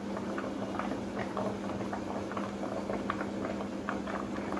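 Thick poppy-seed and potato curry simmering, with many small irregular bubbling pops over a steady low hum.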